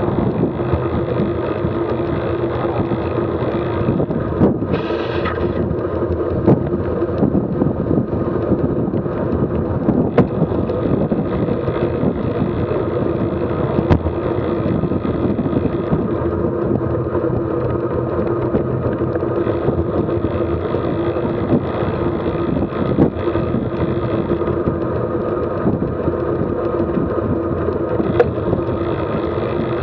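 Steady rush of wind over the microphone and rolling road noise from a bicycle-mounted camera on a road bike moving at cycling speed along a paved path, with a brief brighter swell about five seconds in and a few light clicks.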